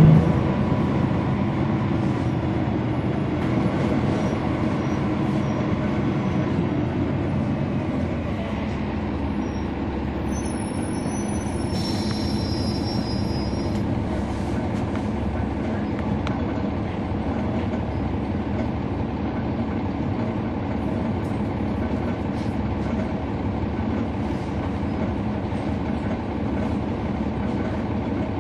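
Cabin of a 2011 NABI 40-SFW transit bus heard from the back seat while riding: its Cummins ISL9 diesel running steadily under road rumble and light rattles. A brief high-pitched squeal rings out about ten to twelve seconds in.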